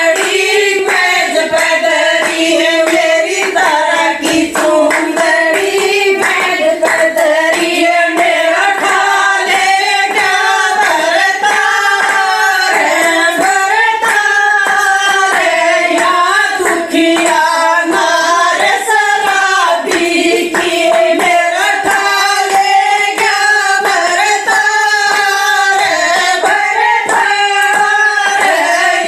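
Haryanvi folk song sung by a woman's voice, a continuous melodic vocal line over a steady percussive beat.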